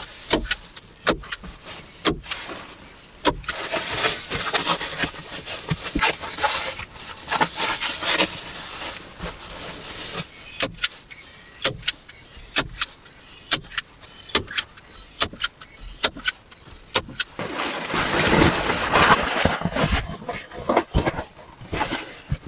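Irregular sharp knocks and clicks with rustling and scraping between them, and a longer, louder stretch of scraping about eighteen seconds in.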